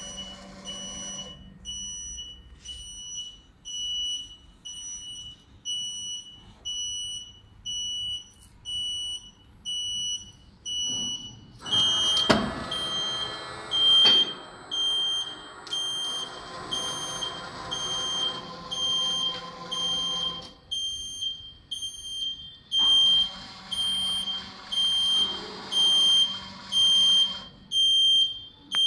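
A press machine's warning buzzer beeping in short, high-pitched beeps a little more than once a second. A loud clank comes about twelve seconds in, and a machine motor runs in two stretches of several seconds under the beeping.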